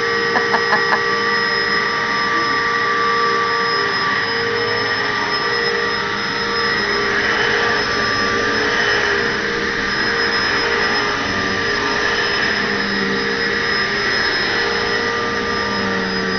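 Upright vacuum cleaner running steadily: a constant motor whine with several steady pitches over a rushing hiss. A quick run of four short pulses comes about half a second in.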